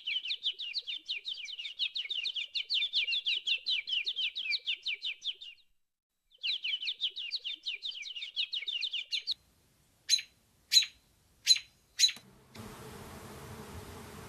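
A songbird sings two long, rapid trills of evenly repeated high notes, then gives four separate sharp chirps. About twelve seconds in, the steady low buzz of a honeybee swarm takes over.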